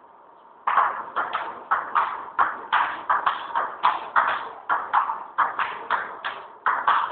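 A table tennis ball clicking off the paddles and the table in a rally, about three hits a second, each with a short echo. The hits begin about half a second in, after a short lull.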